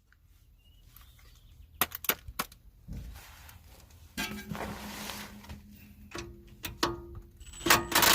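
Metal tools and parts clinking and knocking as they are handled, with scraping and rustling in between and a louder rush of noise near the end.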